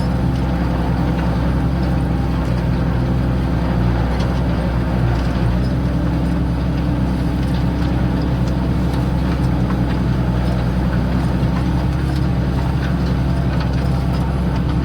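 New Holland TM tractor's diesel engine running steadily under load while pulling a plough through the ground.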